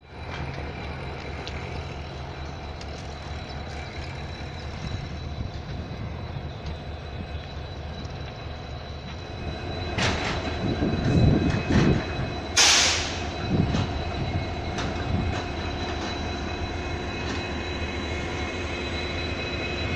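An engine runs steadily in the background, with a few clanks about halfway through and a short sharp hiss, like released air, just after them.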